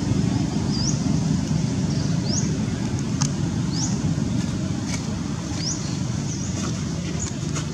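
A steady low outdoor rumble, with a bird repeating a short, high, rising call every second or two.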